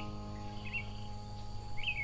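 Soft background music holding a fading note, with about three short bird chirps over it.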